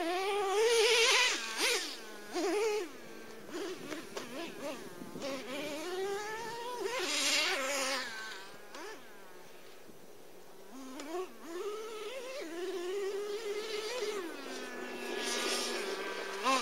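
Traxxas T-Maxx's modded 3.3 nitro engine with a drilled-out resonator pipe, revving up and down in a high buzz as the truck is driven. It is loudest about a second in and again around seven seconds, and settles to a steady idle near ten seconds before revving again.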